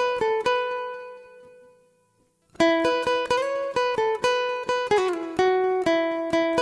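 Background music of plucked guitar-like notes. It fades out about a second in, goes almost silent briefly, then starts again a little after two seconds.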